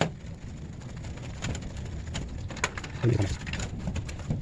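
Scattered light clicks and knocks of steel parts being handled as an alignment jig is seated in a drilled-out chassis plate, with a low coo about three seconds in.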